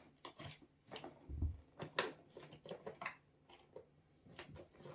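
Scattered clicks, taps and rustles of a doll's cardboard box and its packaging being handled and opened, with a dull low thump about a second and a half in and a sharp click around two seconds.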